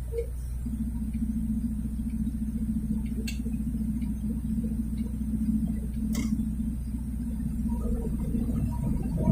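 Low, steady rumble of a car heard from inside the cabin while driving. Two faint clicks come about three seconds apart.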